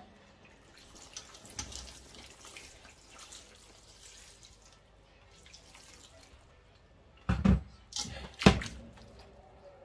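Water poured from an electric kettle into a stainless steel stockpot of chopped vegetables, a steady, faint splashing pour. About seven and eight seconds in come two loud knocks as the steel pot is gripped by its handles and moved on the cooktop, the second the louder.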